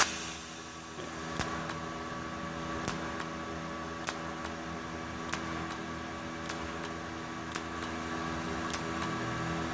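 An IGBT inverter TIG welder, switched on and idling, hums steadily with a few fixed tones. A faint sharp tick comes about every second and a bit. A burst of arc noise from the torch cuts off right at the start.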